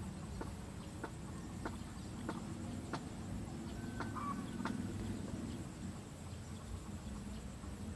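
Domestic fowl clucking: short clucks repeated at a steady pace, a little over half a second apart, with a brief higher call about four seconds in, over a low steady hum.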